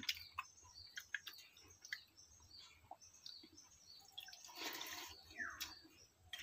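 Faint, sparse sounds of eating by hand: fingers working watery fermented rice (pakhala) in a steel bowl and soft mouth smacks, with a brief wet squelch about four and a half seconds in. A few small chirps sound in the background.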